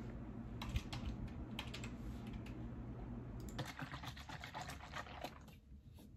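Typing on a computer keyboard: scattered key clicks, with a quick run of keystrokes about three and a half seconds in.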